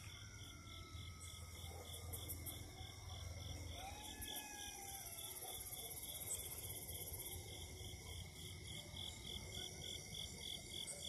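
Night insects chirping in a steady pulse, about three chirps a second, with faint coyote howls gliding up and down in pitch behind them.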